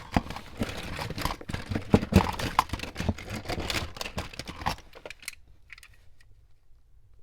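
Hands rummaging through a box of diecast toy cars and their packaging: dense clattering and crinkling that dies down to a few scattered clicks about five seconds in.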